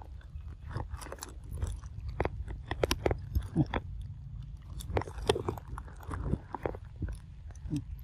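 Macaques biting and chewing pieces of papaya: an irregular run of clicks and smacks.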